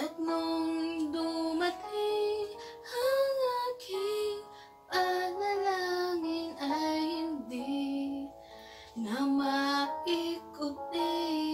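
A woman singing a slow ballad melody in phrases with sliding, held notes over a piano backing track playing sustained chords.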